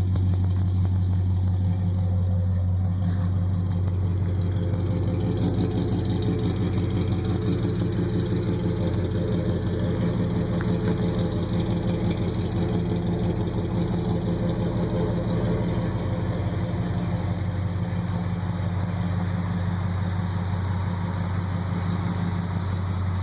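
International 1210 pickup's engine idling steadily through aftermarket chrome headers and a Flowmaster exhaust.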